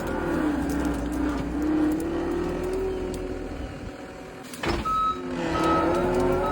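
Skid steer engine revving up and down as it works, with a sharp clank about two-thirds of the way in. Then a reversing alarm starts beeping in a steady on-off rhythm.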